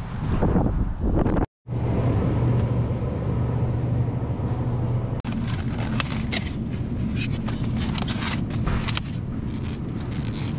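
Steady low hum of a refrigerated grocery aisle. From about five seconds in come scattered clicks and rattles as egg cartons are handled and pulled from the case.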